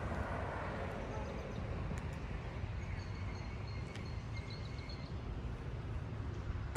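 Outdoor ambience: small birds chirping now and then, in short high calls, over a steady low rumble.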